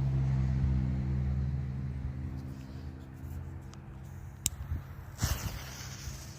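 A vehicle engine humming steadily and slowly fading away, then a faint click and a single sharp crack about five seconds in.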